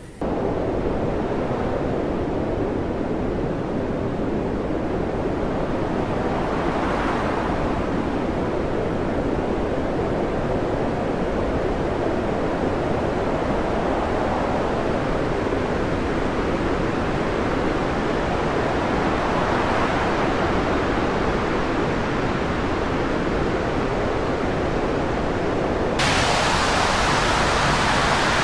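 Storm wind and heavy seas at sea: a steady rushing noise that swells a few times, then turns suddenly brighter and louder near the end.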